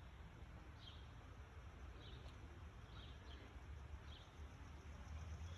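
Faint outdoor ambience with a low rumble, and a small bird giving short high chirps about once a second.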